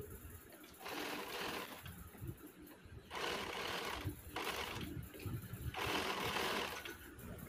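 Electric sewing machine stitching in short runs of about a second each, stopping and starting about four times as lace is fed under the presser foot.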